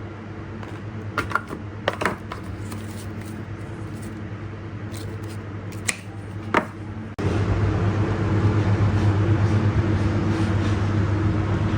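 A few sharp clicks and taps from handling the earbuds and their packaging, over a steady low hum. About seven seconds in, a louder steady humming noise cuts in abruptly.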